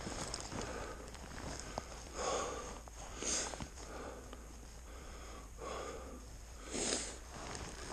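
Skis swishing through deep powder snow, with several soft whooshes over a steady hiss.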